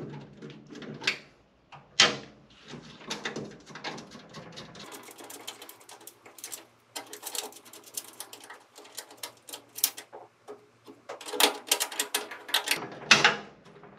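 Irregular clicks, taps and light metallic rattles from a screwdriver working a mounting bracket and its screws inside a metal bill-changer cabinet, with the wire harness being handled. A sharp knock comes about two seconds in, and a thicker run of clicking near the end.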